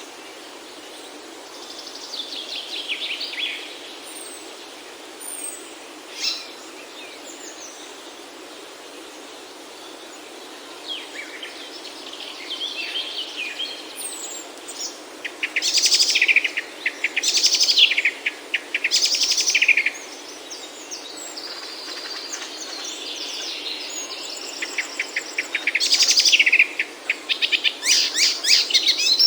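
Young birds chirping and giving rapid, buzzy begging calls in repeated bursts. The calls are sparse at first and grow louder and more frequent about halfway through, over a steady background hiss.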